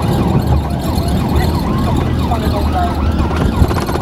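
Police sirens sweeping quickly up and down, two or more overlapping, heard from inside a car's cabin over steady engine and road rumble.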